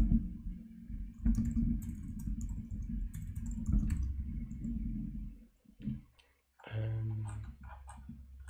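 Typing on a computer keyboard: a run of quick key clicks, with a short pause a little past the middle before the typing resumes.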